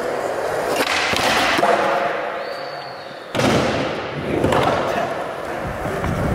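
Skateboard wheels rolling on smooth concrete, with a sudden loud clack of the board hitting down about three seconds in.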